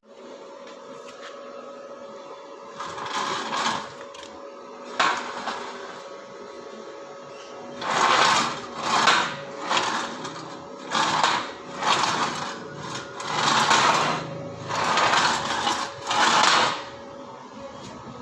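A machine running with a steady motor hum. A string of harsh, noisy bursts of about a second each comes through, sparse at first and close together in the second half.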